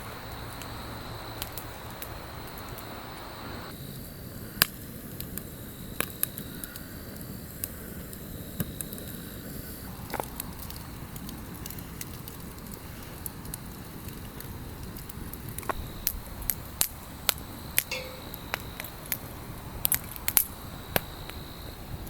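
Wood fire crackling: scattered sharp pops over a steady hiss, the pops coming thicker near the end.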